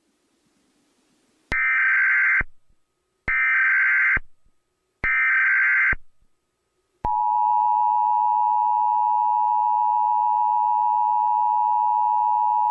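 Emergency Alert System broadcast tones. First come three short bursts of SAME header data, each about a second long with brief gaps between them. Then, about seven seconds in, the steady two-tone EAS attention signal begins and holds.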